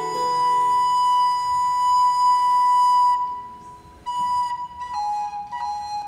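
Two recorders playing a slow baroque passage: one long high note is held and swells, then fades away about three seconds in, and shorter notes start again about a second later.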